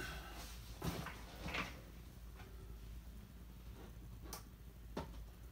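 Faint knocks, clicks and rustles of a person getting up from a chair and handling things, a few short sharp ones scattered through, over a steady low hum.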